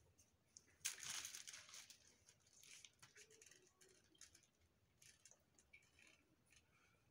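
Faint rustling of a plastic piping bag being squeezed as whipped cream is piped, with a short, louder hissing rustle about a second in and scattered light clicks; otherwise near silence.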